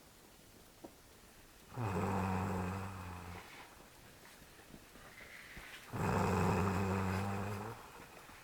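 A sleeping man snoring loudly: two long, rough, low-pitched snores on the in-breath, about four seconds apart.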